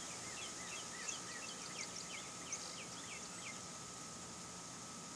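Night insects droning steadily with a high hiss and a constant tone, joined by a quick run of short, high, falling chirps from about half a second in until about three and a half seconds in.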